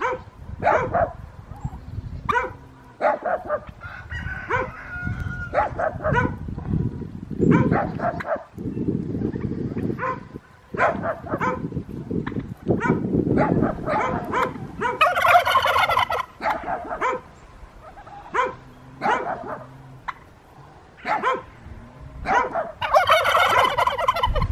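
A flock of white domestic turkeys calling, with short clucks and yelps throughout. Two long rattling gobbles from the strutting toms come, one about two-thirds of the way in and another near the end. A low rumble sits under the calls for several seconds in the middle.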